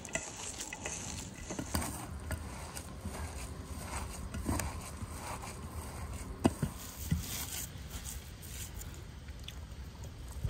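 Bare hands kneading and squeezing a crumbly filling of chopped onion in an enamel bowl: soft squishing and rustling with scattered light clicks, one sharper click a little past halfway, over a low steady rumble.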